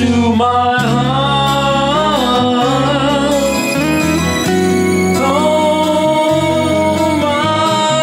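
Slow ballad music in a wordless stretch: a lead melody that bends and wavers over sustained chords and a steady low bass, with a short pause near the middle before a new phrase.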